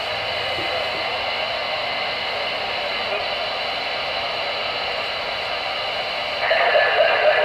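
Steady hiss of static from a CB radio's speaker on an AM channel, heard between transmissions. The noise steps up near the end as another signal comes in.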